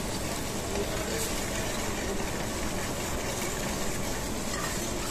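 Steady roar of a gas range burner running on a high flame under a steel pan of simmering gravy, which is being stirred slowly with a ladle.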